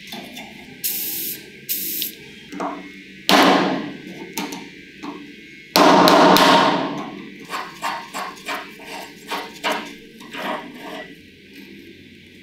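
Metal handling noises from a vintage Vespa scooter's steering column as a rusty control cable with its coiled spring is pulled free and worked with pliers: clinks and knocks, two louder noisy strokes about a second long a little after three and near six seconds in, then a string of quick clicks and taps.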